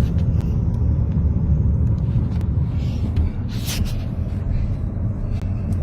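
Severe storm: a loud, steady low rumble of wind with scattered sharp knocks of objects striking, and a brief hiss about three and a half seconds in.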